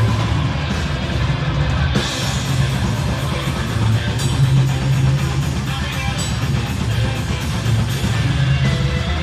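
Heavy metal band playing live: distorted electric guitars and bass over steady, driving drums, recorded loud through a phone's microphone.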